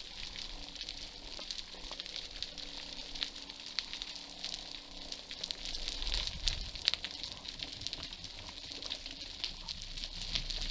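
Underwater ambience recorded in the sea: a continuous fine crackle of many small sharp clicks. From about six seconds in, a low rush of moving water joins it as the diver swims up toward the surface.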